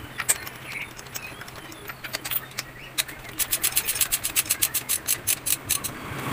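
Socket ratchet with an extension and 16 mm deep spark-plug socket, used to back out a spark plug. A few scattered metal clicks and taps, then past the middle an even run of quick sharp ratchet clicks, about six or seven a second, for a couple of seconds.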